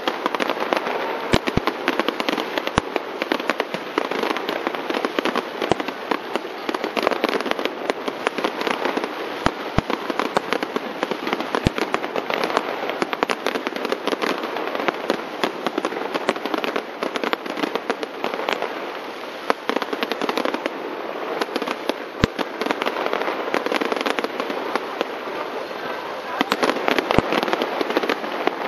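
Aerial fireworks display: a dense, continuous crackling of many small bursts, with a few louder single bangs scattered through it.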